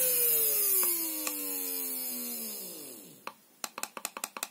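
Small 12 V brushed DC motor winding down as its PWM speed controller's output drops from about 40% towards zero: its whine falls steadily in pitch and dies out about three seconds in. A quick run of light clicks from the controller's push buttons follows.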